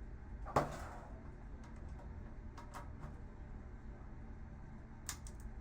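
Scattered clicks and taps of a hand tool working at a hard-to-reach screw in a monitor's chassis: one sharp click about half a second in, a few light ticks in the middle and another click near the end, over a low steady hum.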